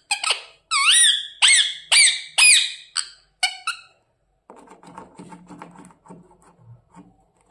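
Pet parrot giving a rapid run of short, high squeaky calls, about two a second, stopping about four seconds in; faint low sounds follow.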